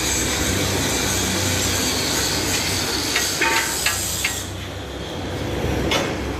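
Sheet-metal roll-forming machine running with a steady hissing mechanical noise. There are a few sharp metallic clicks a little after three seconds in, and the higher part of the noise drops away about four and a half seconds in.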